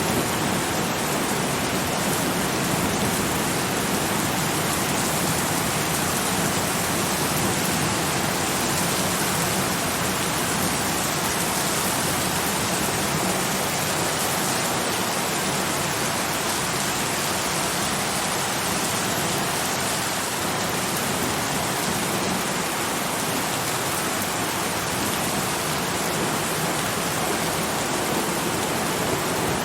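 Steady, heavy rain falling, a dense even hiss of drops.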